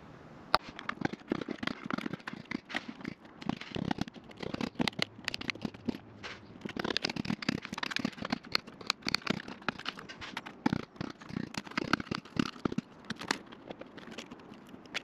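Hammer tapping a chisel along the old caravan sunroof's plastic frame: an irregular run of sharp taps and cracks as the brittle plastic and its adhesive seal snap away. The taps stop near the end.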